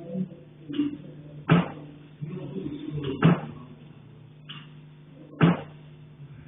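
Knocking on a heating pipe: three sharp, loud knocks roughly two seconds apart, with a couple of fainter clicks between them.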